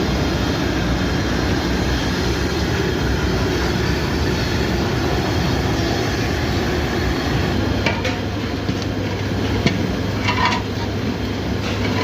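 Steady loud rumble from the large burners under the cooking pots, with a low hum joining about two-thirds of the way in. A few sharp metallic knocks and clinks come near the end, like a ladle striking a big pot.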